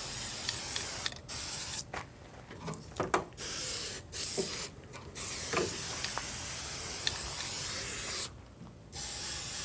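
Aerosol can of Fluid Film rust inhibitor spraying in several hissing bursts of a second or less, with one longer spray of about three seconds in the second half.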